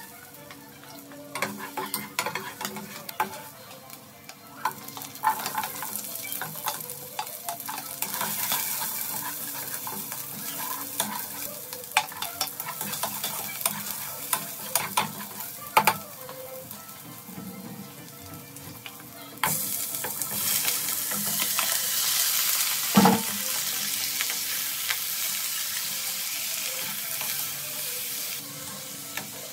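Sliced onion and aromatics sizzling in hot oil in a pot, stirred with a wooden spatula that scrapes and taps against the pot. About two-thirds of the way in the sizzle turns suddenly louder as raw chicken pieces go into the pot, and a sharp knock of the spatula follows soon after.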